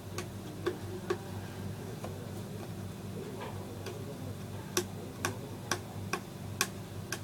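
Irregular sharp clicks and taps, a few at first and then louder, about two a second, from nearly five seconds in, over a steady low hum.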